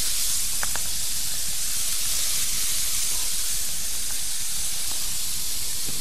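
Shrimp and garlic sizzling steadily on a hot iron griddle plate (teppanyaki).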